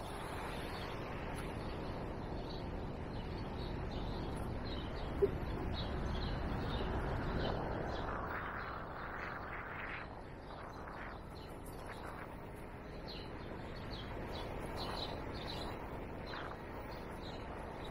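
City street noise from traffic and riding, with small birds chirping in short repeated notes throughout. A brief click is heard about five seconds in.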